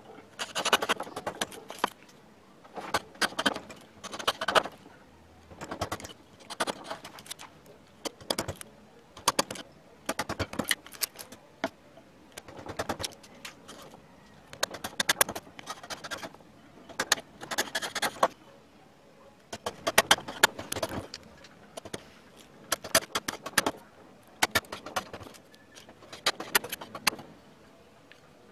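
A flat carving blade pushed by hand through wood, slicing away fibres: short crackling cuts of half a second to a second, one every second or two, with brief pauses between.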